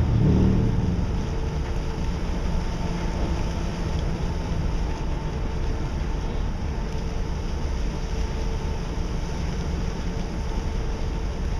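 Ship's engine running: a steady low rumble with a faint constant hum over it, a little louder in the first half-second.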